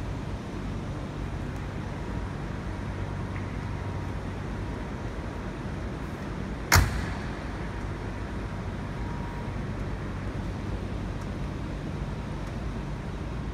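1961 Chevrolet Impala's engine idling steadily. A single sharp knock about seven seconds in is the loudest sound.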